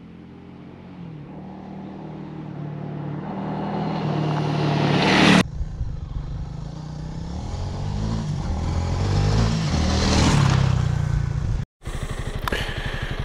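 2021 Honda CRF300L Rally's single-cylinder engine as the dual-sport bike rides toward and past the camera on gravel, getting louder each time, in two passes. Near the end it is idling steadily with an even beat.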